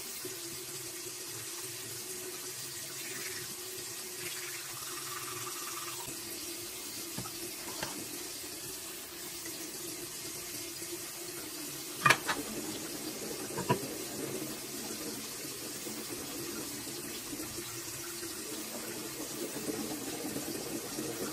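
Bathroom sink tap running steadily, with two sharp knocks, the louder about twelve seconds in and a second near fourteen seconds.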